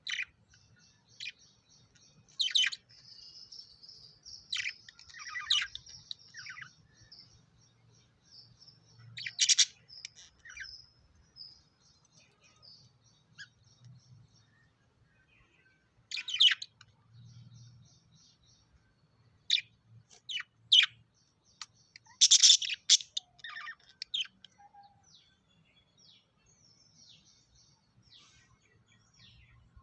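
Lovebirds calling: sharp, shrill chirps at irregular intervals, with runs of rapid high chatter between them and a loud flurry of calls about two-thirds of the way through.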